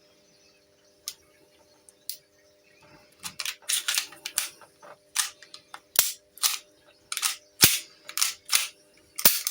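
Sharp clicks and snaps of a replica airgun pistol's parts being fitted back together. They start about three seconds in and come in a fast irregular run, two or three a second.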